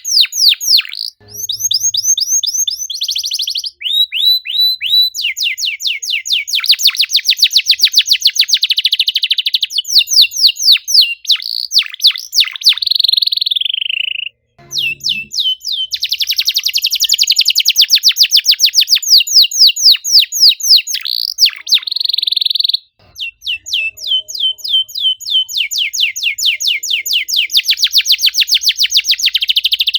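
Domestic canary singing in long, fast trills of rapidly repeated high sweeping notes, broken by a few short pauses.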